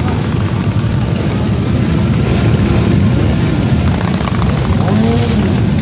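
Motorcycle engines running close by, a dense, fast-pulsing low rumble, with a short rising-and-falling pitched sound about five seconds in.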